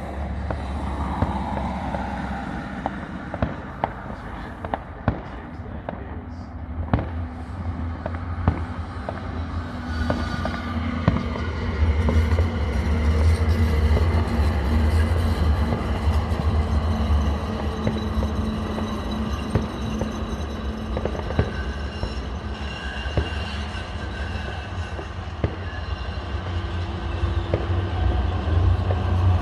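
Scattered firework bangs and cracks, some sharp and close, over a steady low rumble that swells after about ten seconds.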